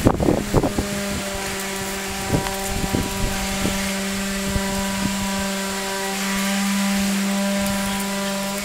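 Steady motor hum at one constant pitch, a little louder near the end and cutting off abruptly, with a few light knocks and taps in the first seconds.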